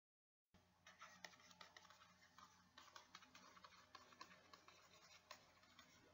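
Faint computer-keyboard typing: a quick, irregular run of soft key clicks that starts about a second in, over a low steady hum.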